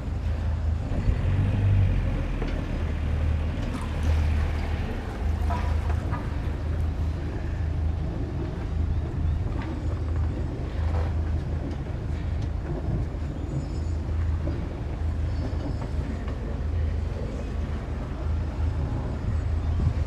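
Sailing yacht's inboard engine running at low revs in slow ahead, a steady low drone with a few faint knocks.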